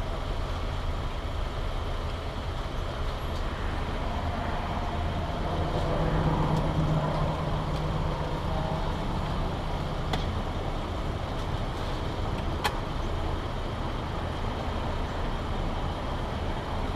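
Car engine idling steadily, with faint background clatter from the restaurant kitchen and a couple of sharp clicks around ten and thirteen seconds in.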